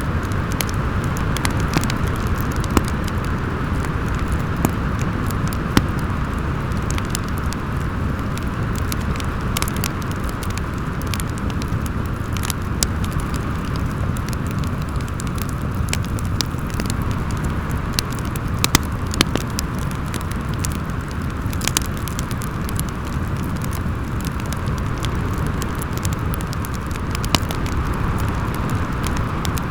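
Wood fire crackling with scattered sharp pops over steady howling wind and a low rumble.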